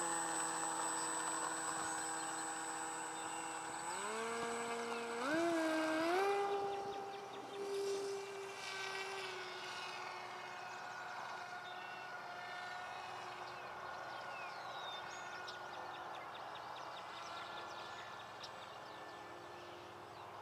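Finwing Penguin RC plane's electric motor and propeller whining, stepping up in pitch twice around four to six seconds in as the throttle opens for takeoff, then fading as the plane flies away.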